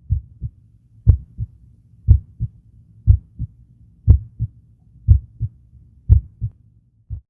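Heart sounds on auscultation: the first and second heart tones as a steady lub-dub about once a second, the first of each pair louder, seven beats in all.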